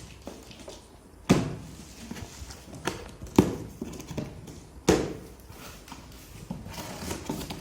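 Cardboard box and packaging being handled during unboxing: three sharp thuds, each with a short decay, with lighter clicks and knocks between them.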